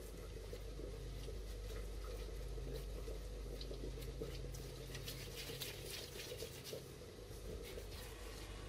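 Gloved hands squeezing and kneading soft mashed-potato mixture in a glass bowl: wet squishing and sticky smacking, busiest in the middle stretch, over a low steady hum.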